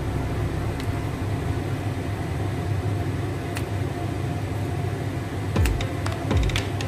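Steady machine hum, with a few sharp snips and clicks of serrated kitchen scissors cutting raw chicken wing skin close together near the end.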